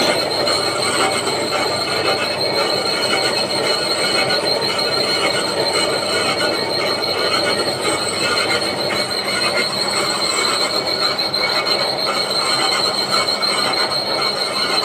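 Steady mechanical running noise with a high, steady whine over it, unchanging throughout.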